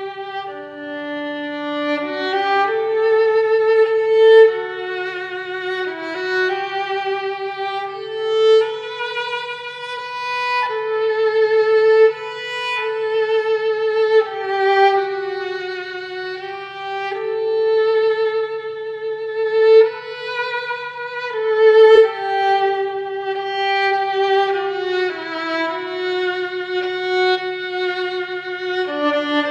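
Background music: a slow violin melody with vibrato, notes held a second or two each, over a faint steady low hum.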